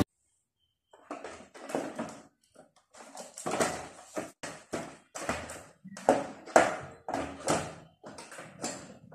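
Hard plastic housing of a tower fan handled and fitted back over its body: a string of irregular knocks, clatters and scrapes of plastic, loudest about three and a half and six seconds in.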